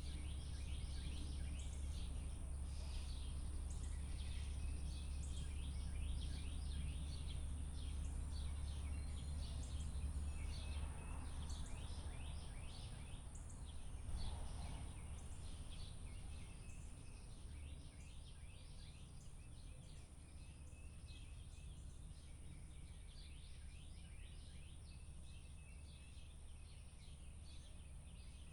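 Many small birds chirping in quick, short calls over a thin, high steady tone and a low steady rumble; the rumble eases off about halfway through.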